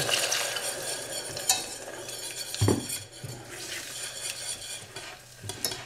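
Stirring in a stainless steel saucepan as soy milk is poured into a hot flour-and-margarine roux, the utensil scraping and clicking against the pot while the mixture is worked smooth. One louder knock against the pot comes about two and a half seconds in.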